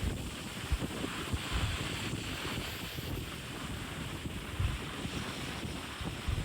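Wind gusting over the microphone, buffeting it unevenly, over a steady hiss of open sea water rushing.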